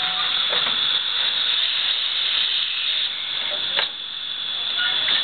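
Narrow-gauge steam locomotive hissing steadily as steam escapes, with a thin high tone held through it. A couple of sharp metallic knocks, one about half a second in and one near four seconds.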